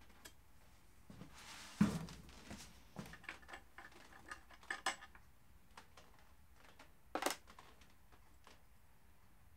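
Metal parts and hand tools clinking and knocking while being handled, with a dull thump about two seconds in, a run of small clinks, and a sharp metallic clank about seven seconds in.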